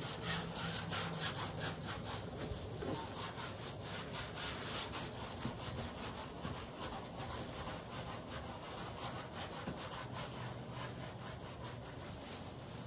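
A hand rubbing acrylic paint across a stretched canvas in quick, repeated strokes, a steady scrubbing sound.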